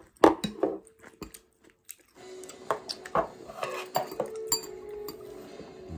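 Eating at a table: chewing, with sharp clicks of cutlery against dishes. About two seconds in, background music comes in under the clinks.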